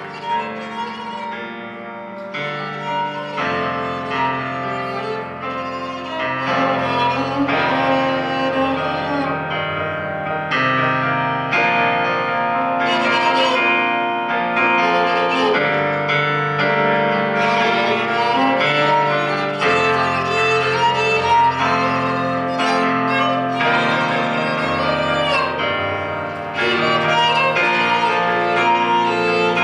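Instrumental music with no singing: a held melody line over chords that change every few seconds, growing louder again near the end.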